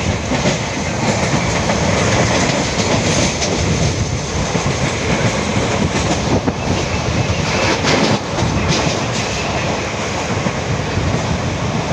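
Moving passenger train heard from alongside the coach at speed: a loud, steady rush of wheel and rail noise, with the clatter of wheels over rail joints now and then.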